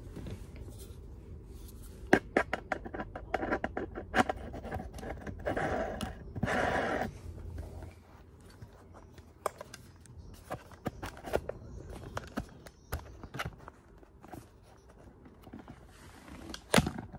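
Handling noise from a phone being fitted and adjusted in a small phone stand: irregular plastic clicks, scrapes and rustling close to the microphone. A dense run of ticks and rustles comes in the first several seconds, sparser clicks follow, and there is one sharp click near the end.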